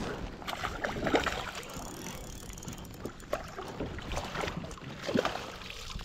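A hooked bass splashing at the surface beside a fishing kayak as it is reeled in, with irregular knocks and rattles from the rod, reel and hull.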